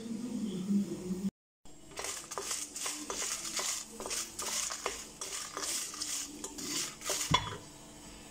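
Wooden spatula stirring dry red chillies around a steel pan as they dry-roast without oil: a quick run of scraping, rattling and light knocks that eases off near the end.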